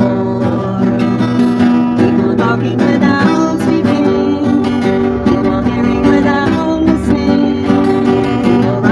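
Guitar music: plucked and strummed notes.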